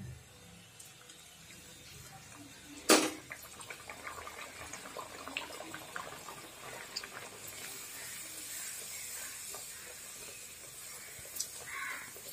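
A puri frying in hot oil in a kadai: a crackling sizzle that builds after a sharp knock about three seconds in, while a slotted spoon presses the puri and it puffs up.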